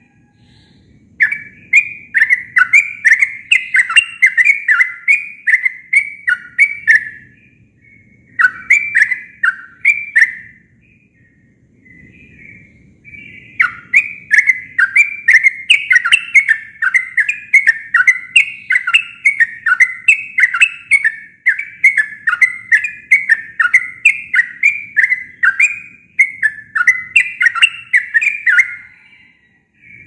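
Yellow-vented bulbul (trucuk) singing its own natural song, without mimicked phrases, in long rapid runs of bubbly whistled notes. There are two short breaks in the first half, then one long unbroken run that lasts until near the end.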